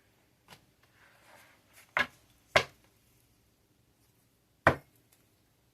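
Tarot cards being handled: a soft rustle, then three sharp slaps of cards set down on a table, two close together and a third about two seconds later.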